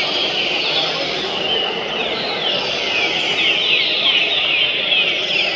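Trinca-ferro (green-winged saltator) song: short whistled phrases that slide downward, repeated quickly and overlapping, heard over steady background noise.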